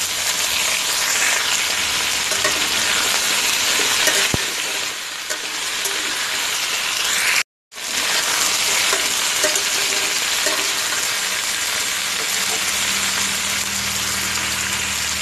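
Diced vegetables (pumpkin, radish, raw banana, potato) sizzling and frying in hot oil in a pan, stirred with a metal spatula. The sound cuts out for a moment about halfway through.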